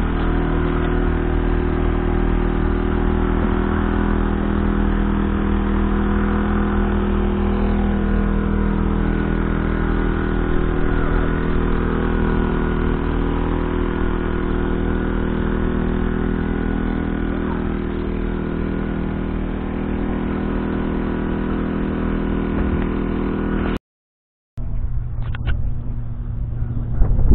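2017 Valtra T174 Direct's 7.4-litre six-cylinder diesel engine running steadily. About 24 seconds in, the sound cuts out briefly, and then another tractor's engine is heard with wind buffeting the microphone.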